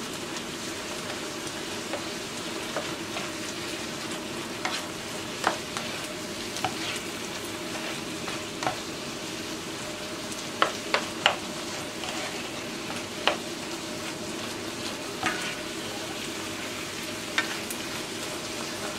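Ground beef sizzling as it browns in a nonstick frying pan, stirred with a plastic spatula that scrapes and taps the pan now and then, with a few sharper taps a little past the middle.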